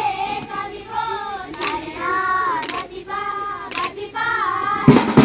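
Children singing a song together, with sharp wooden knocks now and then from sticks struck together, the loudest pair near the end.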